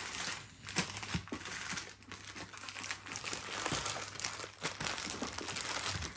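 Plastic wrappers of chocolate-bar multipacks crinkling and rustling as the packs are handled and pushed into a suitcase among clothes, in an irregular run of small crackles.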